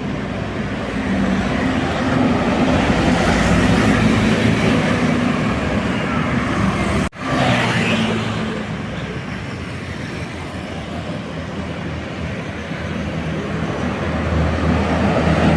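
Road traffic with buses passing, engines running steadily. The sound breaks off sharply about halfway through, then comes back and grows louder near the end.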